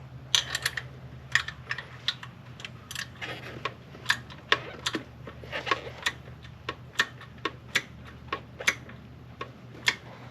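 A 3/8-inch drive ratchet clicking irregularly, in short runs of sharp ticks, as a thermostat housing bolt is snugged tight.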